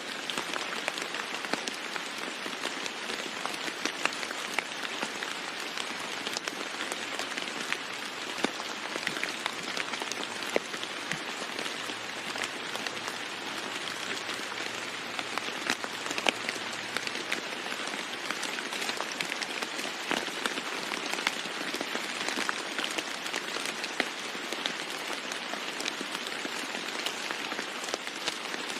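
Steady rain falling on a roof: a constant hiss with many sharp drop taps scattered through it.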